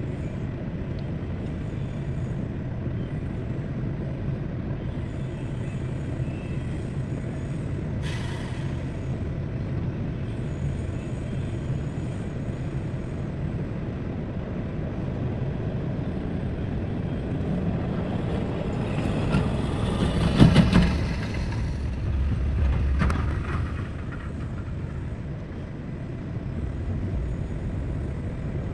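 Heavy diesel engine of working machinery running steadily, with a brief hiss about 8 seconds in and a louder surge around 20 seconds in, then a smaller one soon after.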